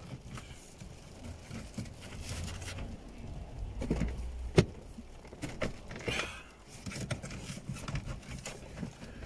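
Plastic dash fascia and double-DIN car stereo being pressed back into a Honda Civic FN2's dashboard: rustling, small knocks and handling noise, with one sharp click about four and a half seconds in.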